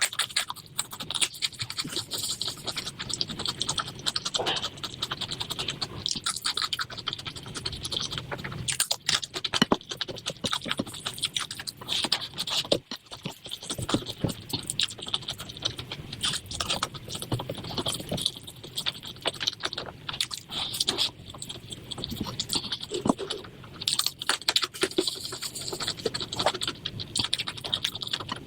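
Close-up eating sounds of curry and rice: chewing, with many small, quick scrapes and clicks.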